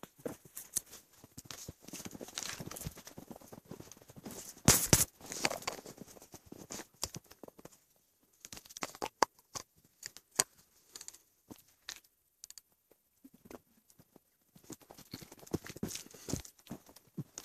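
Footsteps crunching in snow in an uneven walking rhythm, with a louder scuffing burst about five seconds in and two short pauses in the steps.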